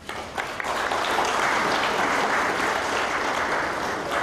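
Applause from a room of people: dense, even clapping that starts and fills out within the first second, then holds steady.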